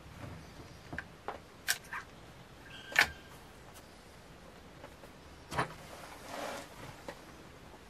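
Wänzl rifle's breech and lock being worked by hand: a series of sharp metallic clicks and snaps, the loudest about three seconds in and another about five and a half seconds in, followed by a short scraping rustle.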